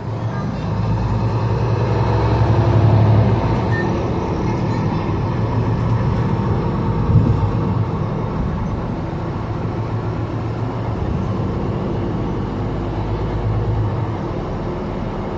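Interior sound of a Mercedes-Benz Citaro C2 G articulated city bus: a low engine drone that rises as the bus pulls away from a stop, is loudest about three seconds in, then settles into steady running along the road.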